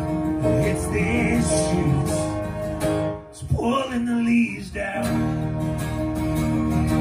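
Fiddle and strummed acoustic guitar playing a song live, the fiddle holding long notes. About three seconds in the music stops for a moment, a voice sings a short phrase, and the fiddle and guitar come back in.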